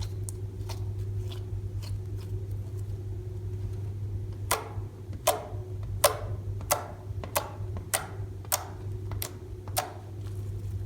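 Hands working slime with eyeshadow mixed in, the slime giving a few faint clicks and then a run of about ten crisp pops, roughly one every two-thirds of a second, from about halfway through. A steady low hum lies under it throughout.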